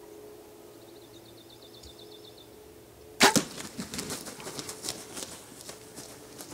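A sharp crack of a bow shot striking a strutting wild turkey tom, followed by the hit bird's wings flapping hard for about three seconds.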